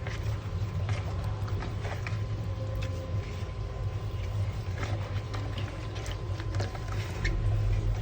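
Hands rubbing and rinsing pieces of Indian mackerel in a bowl with ragi flour and turmeric, giving scattered small wet clicks and knocks over a steady low hum.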